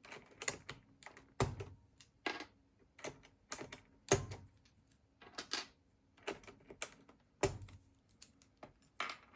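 ABS keycaps being pulled off a vintage Leading Edge DC-3014 keyboard with blue Alps switches: irregular plastic clicks and pops, with a few heavier knocks about one and a half, four and seven and a half seconds in.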